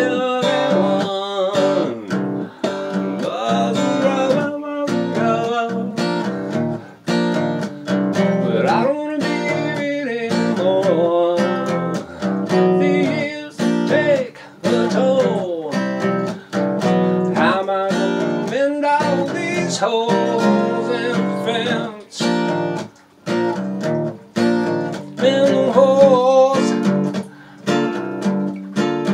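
Acoustic guitar strummed and picked, playing a song.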